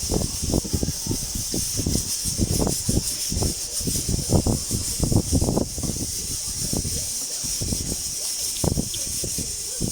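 Pressure cooker steam venting with a steady high hiss, over a run of short scrapes and knocks from a knife peeling potatoes.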